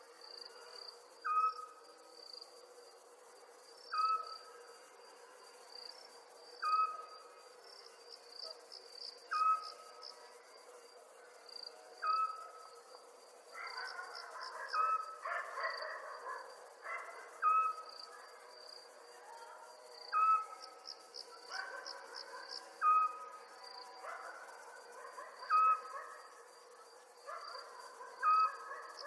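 Night ambience of crickets chirping steadily, with short trills. Over it a single short pitched call repeats about every two and a half to three seconds, and a rougher, louder stretch of sound comes in around the middle.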